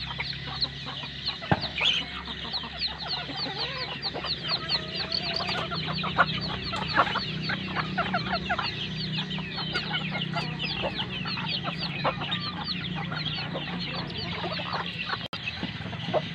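Chickens clucking while a brood of chicks peeps rapidly and without a break, many short high calls a second.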